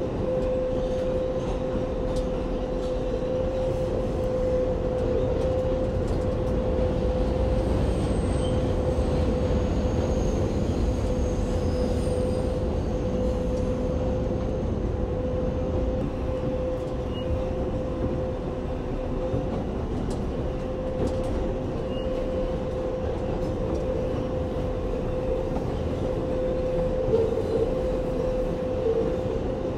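New York City Subway 7 train running, heard from on board: a steady low rumble of wheels on rail under a constant hum, with faint high wheel squeals about eight and twelve seconds in.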